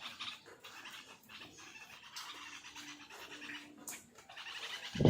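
Faint, repeated bulbul chirps, from a rain-soaked fledgling or its parents. There is a brief click just before the end, then a short human voice sound right at the end.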